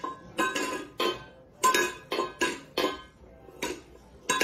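Stainless steel pet bowl clanking on a hard floor as a cat knocks it about: a dozen or so irregular metallic clinks, each ringing briefly.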